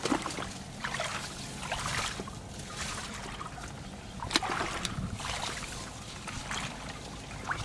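Footsteps wading through shallow muddy water, with irregular splashes about once a second.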